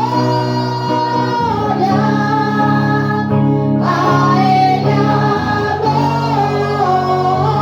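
Christian worship music: singing over band accompaniment, with held bass notes that change chord about every few seconds.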